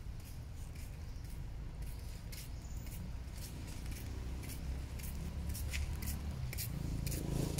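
A macaque drinking from a puddle at a water tap: a string of short, irregular wet clicks and slurps, over a steady low rumble.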